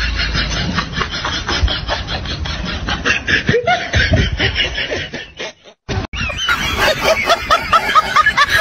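Laughter, in two stretches broken by a brief dropout a little past halfway; the second stretch is a quick run of short rising-and-falling laughing sounds.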